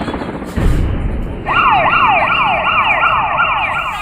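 Electronic siren sound effect from a toy helicopter's built-in speaker: a quick rising sweep repeated about three times a second, starting about a second and a half in over a steady noisy hum and cutting off sharply near the end.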